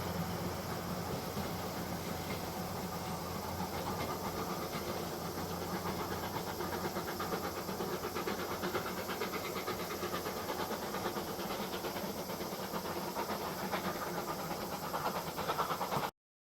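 Steam locomotive with a steady hiss and a low hum, under a fast, fine rattle. The sound cuts off abruptly near the end.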